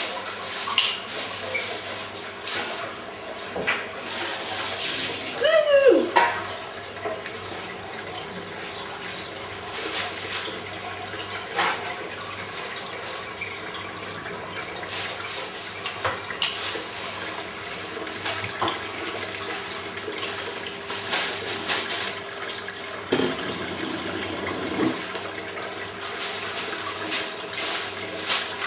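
Aquarium water splashing and bubbling steadily, with many small clicks and knocks scattered through it. A brief wavering high sound rises and falls about six seconds in.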